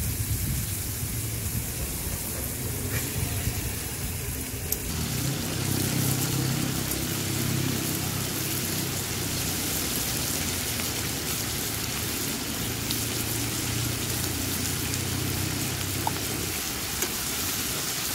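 Marinated lamb pieces sizzling in hot oil in a frying pan on a portable gas stove; the sizzle grows louder about five seconds in, as more meat goes into the pan, and then holds steady.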